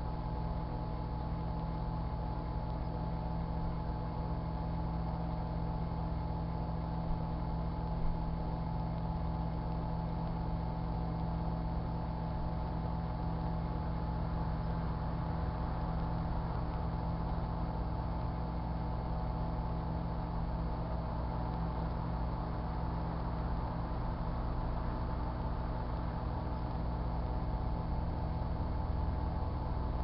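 Sharp Carousel microwave oven running with a steady hum and buzz, which the owner puts down to the old microwave being on its last legs. Two faint ticks about seven and eight seconds in.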